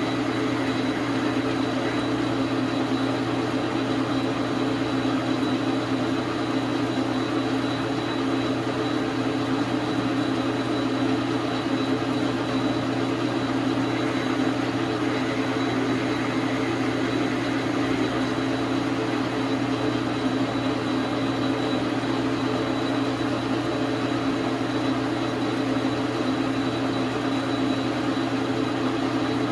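Dar Sin 12 x 37 manual metal lathe running steadily, its motor and gear train giving an even hum with a thin high whine above it.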